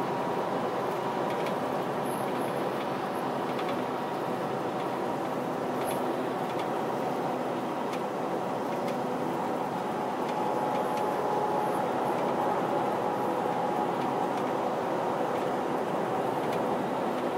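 Steady drone inside a semi-truck's cab cruising at highway speed: engine and road noise, with a faint steady hum.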